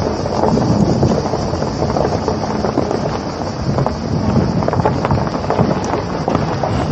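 Wind buffeting a camera microphone on the move along a road, a loud, dense, irregular rumble with crackling.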